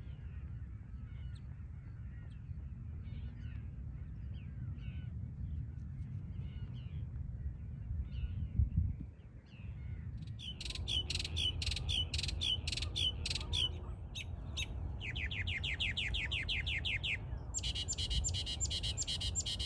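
Northern mockingbird singing from about halfway through: loud phrases in which one note is repeated several times before the bird switches to another, first about four notes a second, then a fast run of down-slurred notes, then another repeated series. Before the song, only a low rumble with faint distant bird chirps.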